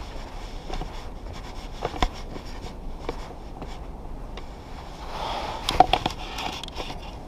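Footsteps of a hiker on a rocky trail, irregular crunching steps every half second to a second, over a steady hiss.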